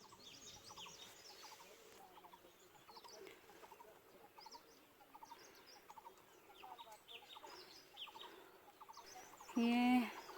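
Faint chorus of wild birds chirping in many quick, short notes. Near the end comes one brief, louder pitched call.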